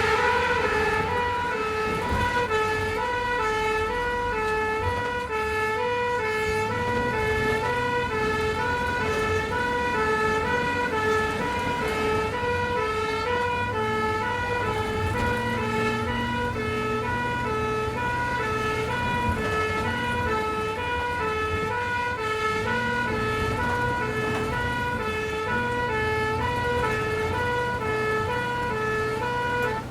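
Ambulance two-tone siren sounding continuously, alternating steadily between a high and a low note, over the low hum of the ambulance's engine running.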